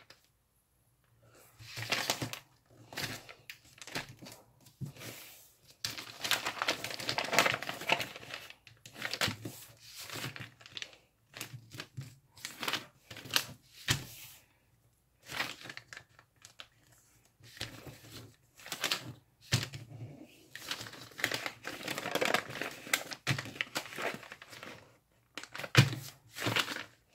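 A sheet of origami paper rustling and crinkling as it is pulled over and creased flat by hand, folding it into sixteen equal pleats. The sound comes in irregular bursts with short pauses between folds.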